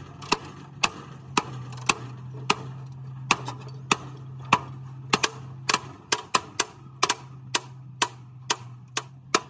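Sharp metallic hammer knocks on a steel truck chassis rail during frame straightening, about two a second and coming faster and more unevenly in the second half, over a steady low hum.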